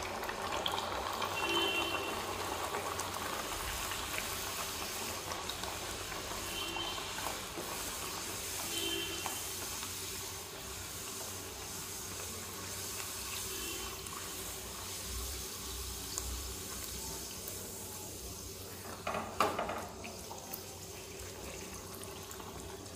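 Pea-stuffed kochuri deep-frying in hot oil in a kadai: a steady sizzle and bubbling as oil is spooned over the frying dough with a wire skimmer. A brief clatter about nineteen seconds in.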